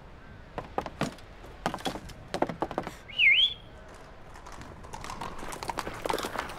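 Cartoon sound effects: a quick run of light clicks and knocks, then a short whistle that dips and comes back up in pitch, the loudest sound. A soft noisy murmur with more clicks builds near the end.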